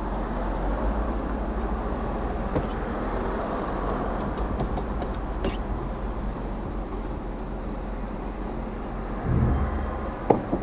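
Chevrolet Tahoe driving, heard from inside the cabin: steady engine and road noise with a deep hum, a few light clicks, and a brief low rumble followed by a sharp click near the end.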